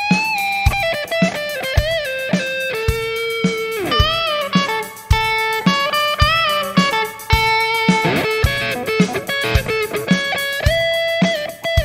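Background music: an electric guitar playing a lead line of held notes with bends, over a steady drum beat.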